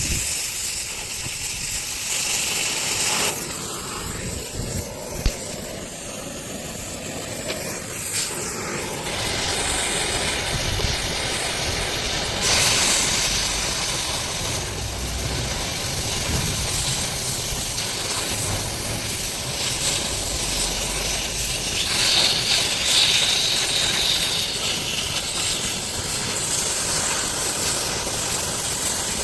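Arc welding on a tractor implement hitch: a steady hiss from the welding arc, which thins out about three seconds in and comes back stronger about nine seconds in.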